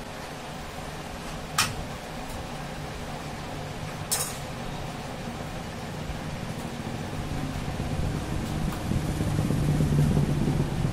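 Two sharp clicks a few seconds apart as wire-harness connectors are pulled off the composite power supply board of a Canon iR3300 copier, over a steady low hum that grows louder toward the end.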